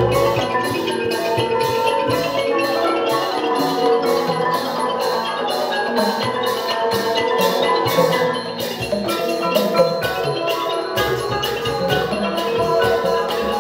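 Thai piphat mon ensemble playing: khong mon gong circles and ranat xylophone carry a busy melody over drums, on a steady, even beat.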